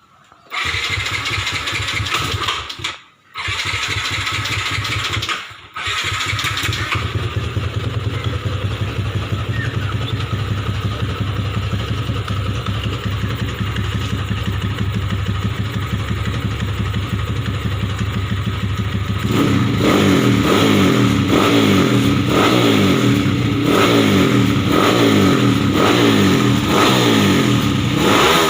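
Freshly overhauled motorcycle engine with a 65 mm big-bore block starting up, cutting out briefly twice, then idling steadily. Near the end it is revved over and over, about once a second.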